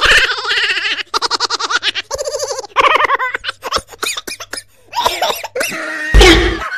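Comic laughter sound effect: a voice giggling and cackling in quick ha-ha pulses, with a fast run of short bursts about a second in. A loud, sudden burst of sound comes near the end.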